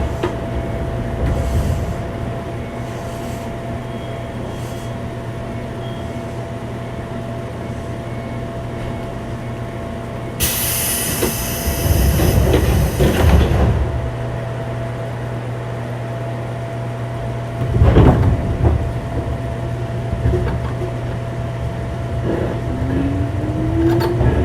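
Inside a JR 205-series electric train's motor car standing still: a steady hum of onboard equipment with a constant tone. About ten seconds in comes a hiss of air lasting about three seconds, then a single thud around eighteen seconds. Near the end the internal-fan traction motors start a rising whine as the train begins to accelerate.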